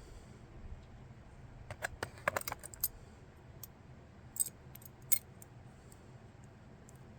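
Metal pocket knives clinking and clicking against one another as they are handled: a cluster of light clicks about two seconds in, then a few separate clinks later.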